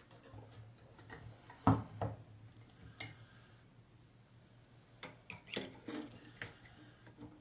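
Metal clinks and knocks from steel grooming shears and the sharpening machine's fittings being handled, one clink about three seconds in ringing briefly, over a faint low hum.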